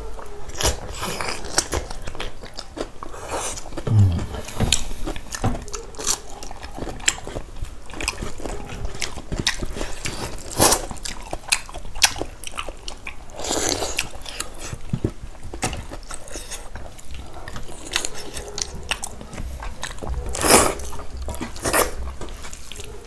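Close-miked eating: chewing and biting into buffalo-leg soup and dhido, with many small mouth clicks and smacks and a few louder ones.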